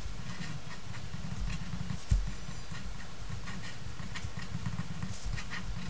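Faint scratches of a ballpoint pen drawing lines and a box on paper, over a steady low hum, with one soft thump about two seconds in.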